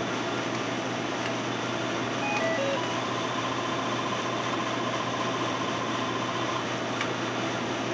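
Electronic sounds of a Cherry Master video slot machine: a short run of beeps stepping down in pitch, then about three and a half seconds of rapid, even beeps on one high note as a win is counted up into the credits. A steady background hum of noise runs under them.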